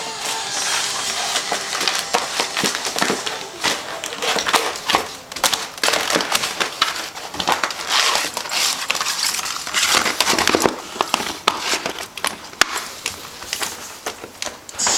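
Golden retriever puppy chewing a hard plastic cone collar: an irregular run of cracks, crunches and crinkles of plastic between its teeth.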